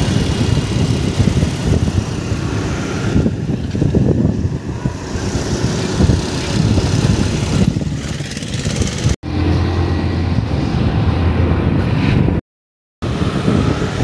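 Road vehicle on the move: steady engine and road noise, cut off briefly about nine seconds in and again near the end.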